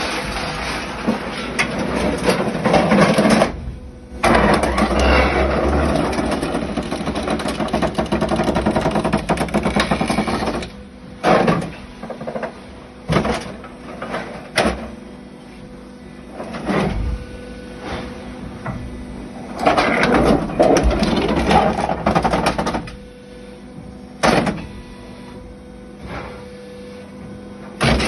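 Idromec PN2700 baler at work: a steady hydraulic hum runs throughout under long spells of loud grinding and crashing, then shorter sharp bangs and knocks.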